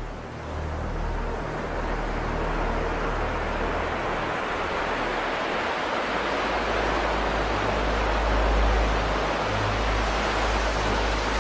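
Ocean surf washing onto a beach: a steady rushing hiss of breaking waves that swells in just after the start, with low sustained tones beneath it.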